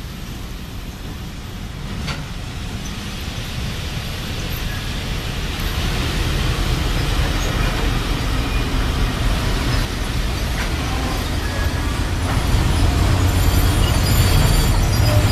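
VL11.8 multi-section DC electric locomotive running slowly along the track: a steady mechanical rumble of motors and wheels on rails that grows louder as it comes closer.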